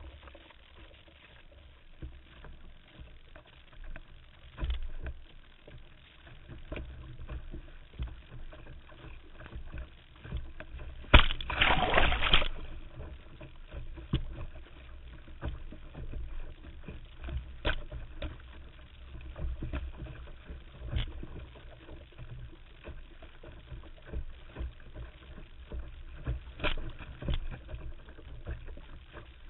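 Water rushing and splashing along the hull of a small sailing dory under way, with scattered slaps of water against it. About eleven seconds in comes a loud rush of noise lasting about a second and a half.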